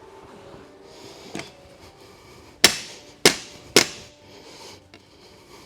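Three sharp knocks, roughly half a second apart, with a fainter knock before them, as parts of an axe-throw target's frame are forced into place by striking them.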